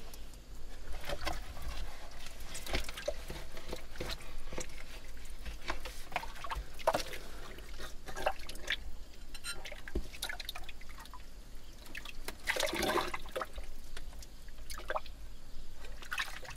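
Gloved hands groping through muddy water and sludge at the bottom of a waterlogged privy pit: irregular splashing, sloshing and dripping, with scattered small sharp clicks. The splashing gets busier about thirteen seconds in.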